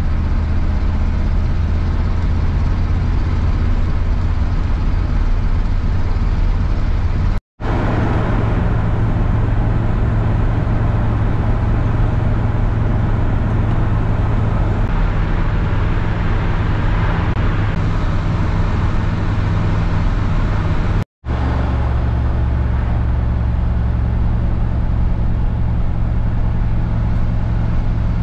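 Steady engine and tyre drone inside a car's cabin while driving at highway speed. It cuts out twice for a split second, about seven and a half and twenty-one seconds in.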